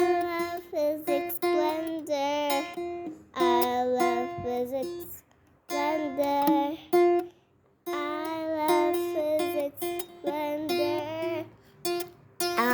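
Music: a song with a sung melody over guitar, in short phrases separated by brief pauses.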